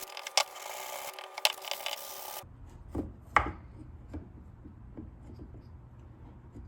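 Hand tools rubbing and scraping on a wooden box corner: a steady rubbing hiss with sharp clicks that cuts off suddenly about two and a half seconds in. A few light wooden knocks follow.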